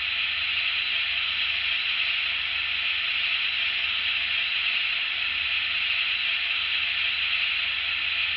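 Steam engine giving off a steady, unbroken hiss of escaping steam, with a faint low hum underneath.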